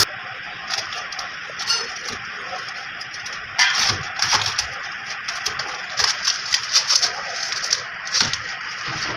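Scattered light metal clinks and knocks, as parts and hand tools are picked up and set down on a workbench, over a faint steady hiss. The loudest knock is about three and a half seconds in, with a quick run of clinks a little past the middle.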